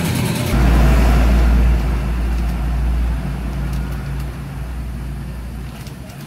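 Low rumble of a vehicle engine close by, strongest about half a second in and then fading away gradually over several seconds.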